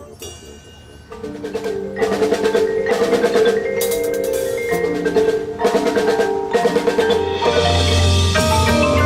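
Marching band playing, with mallet percussion (marimba, xylophone) and drums to the fore; the music swells from soft to loud about a second or two in, with a deep low rumble building near the end.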